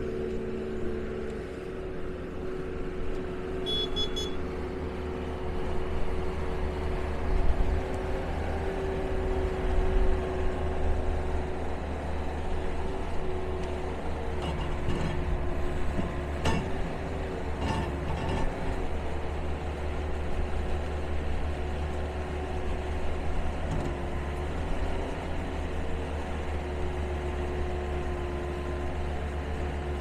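Bobcat 773 Turbo skid steer's turbo diesel engine running as the machine drives and turns, its pitch steady with swells in loudness. There are a few short knocks a little past halfway.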